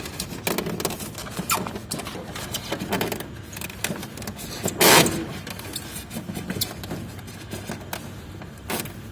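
Handling noise of an electrical cable being pushed and pulled through the air conditioner's casing: scattered small clicks, rustles and scrapes, with one louder scrape about five seconds in.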